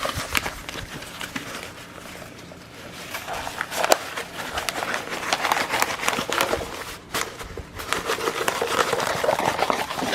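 Canvas and its packaging being handled and slid back into a cardboard box: irregular rustling, scraping and light knocks.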